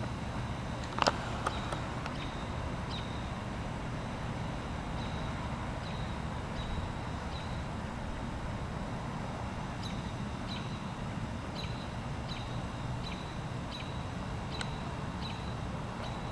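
Steady outdoor background noise with a short, high chirp repeating about once or twice a second from a small animal, and a couple of sharp clicks about a second in.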